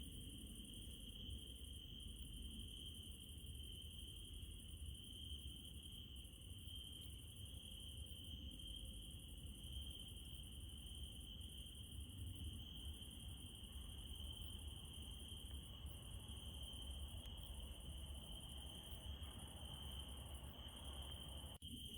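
Crickets trilling in one continuous high-pitched band over a faint low rumble, with a momentary dropout near the end.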